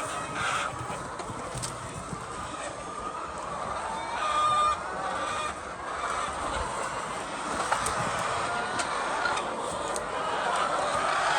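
A flock of chickens clucking and calling over one another, with one louder, drawn-out call about four seconds in.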